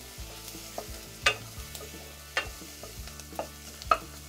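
Wooden spoon stirring chopped onions and garlic frying in oil in a stainless steel pot, with several sharp knocks of the spoon against the pot, the loudest near the end, over a light sizzle.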